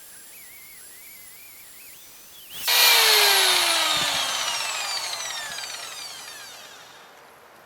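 Highland Park wet grinder/polisher: its whine comes in suddenly a little under three seconds in, then falls steadily in pitch and fades over about four seconds as the wheel winds down.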